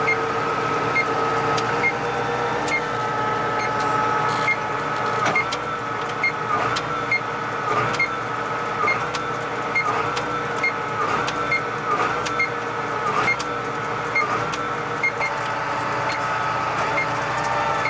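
Tractor engine running under load, heard from inside the cab. Its steady whining pitch dips briefly and recovers about once a second, and a faint regular ticking runs alongside.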